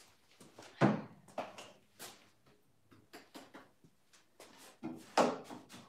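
Light knocks and clatter of painting supplies and a cup being handled and set down on a wooden workbench and cabinet. The loudest knock comes about a second in, and another near the end.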